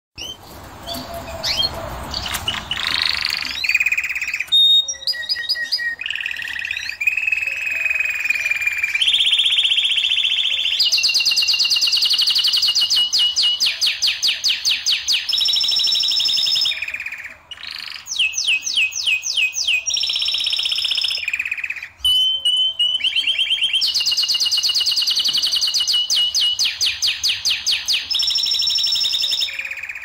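Domestic canary singing a long song of fast trills and rolling runs, each a rapid string of repeated high notes changing from phrase to phrase, with brief breaks about 17 and 22 seconds in.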